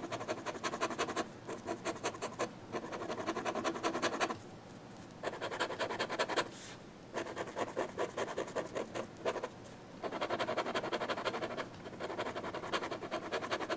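Fountain pen nib scratching across sketchbook paper in rapid back-and-forth hatching strokes, in runs of a second or more broken by short pauses.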